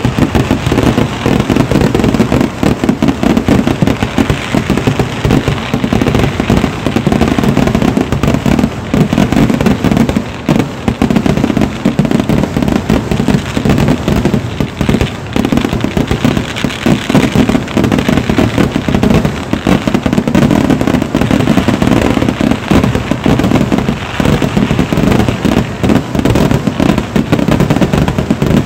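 Ground fireworks barrage of the Kerala vedikkettu kind: an unbroken, rapid-fire stream of firecracker bangs and crackling, loud throughout with no pauses.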